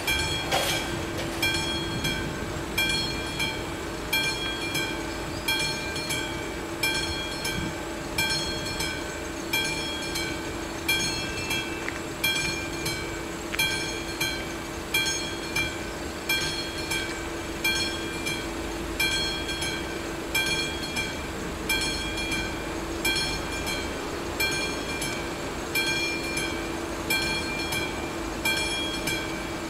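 Level-crossing warning bell ringing in an even rhythm, about one strike a second, over a steady low hum.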